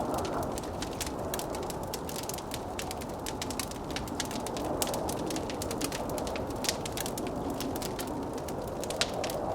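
A wood fire crackling with many sharp pops and snaps over the steady rush and howl of blizzard wind.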